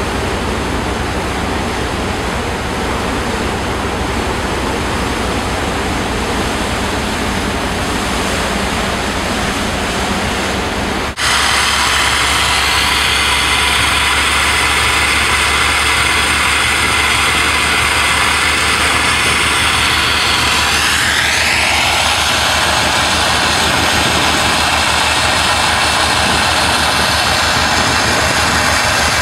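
Tugboat's engine running with steady wind and water noise. About eleven seconds in it jumps to a louder, steady rushing from the tug's fire-fighting water cannon and its pump, with a rising whine partway through.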